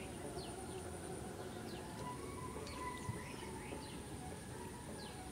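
Outdoor ambience: birds chirping in many short falling calls over a steady, high, thin insect drone and a low even background hiss.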